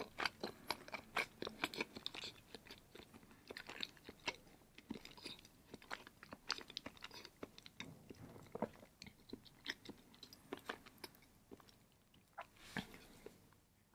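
Close-miked mouth sounds of a person chewing a mouthful of cheese with lips closed: a run of short wet clicks and smacks that comes thick at first and thins out towards the end.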